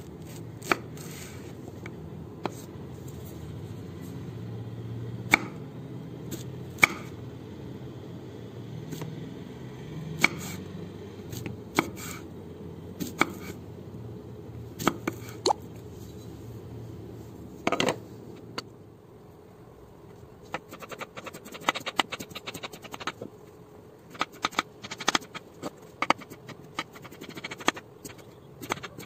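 A kitchen knife on a wooden chopping board, slicing raw Kerala banana: scattered single taps at first, then a quick run of cuts through the last third.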